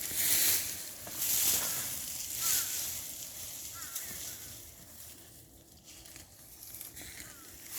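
Rustling and scraping in wood-chip mulch as sweet potatoes are dug out, coming in hissy bursts about once a second and dying down after the first few seconds.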